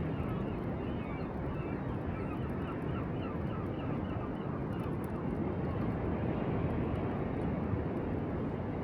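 Steady wind and sea noise on an exposed pier, with a quick run of short repeated bird calls during the first few seconds.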